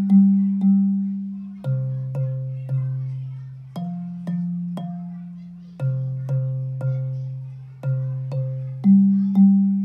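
Bass xylophone played with soft yarn mallets: low, ringing wooden-bar notes in a steady bass line, struck in groups of three about half a second apart, moving between a lower and a higher pitch.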